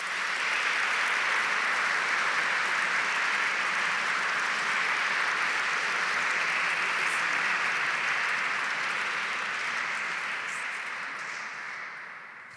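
Audience applauding: steady clapping from a crowd that dies away near the end.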